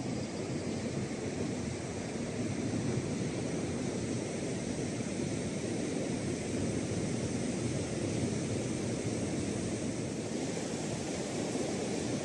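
Steady rush of surf breaking on a sandy beach.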